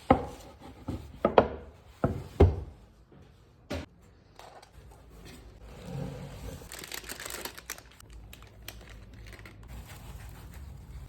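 Kitchen handling noises: several sharp knocks in the first few seconds, then a few seconds of crinkling.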